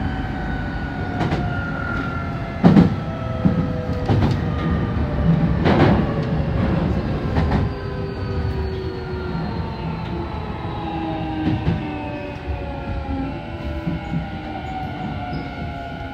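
Nankai 8000 series electric train running, heard from the front car: the whine of its traction motors sits in several tones that fall slowly in pitch as the train slows. Under it is a steady running rumble with sharp clacks of the wheels over rail joints and points, the loudest about three seconds in.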